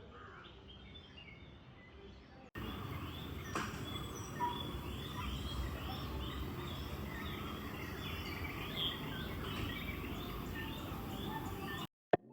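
Many birds chirping and calling over a steady background hiss of outdoor ambience. The sound jumps louder about two and a half seconds in and cuts off abruptly just before the end.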